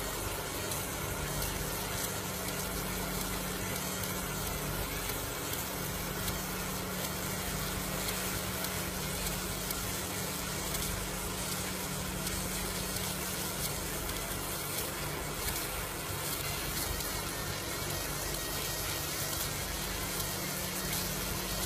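Fiber laser marking machine running as it etches lettering into a metal firearm receiver: a steady hum with an even hiss over it, unchanging throughout.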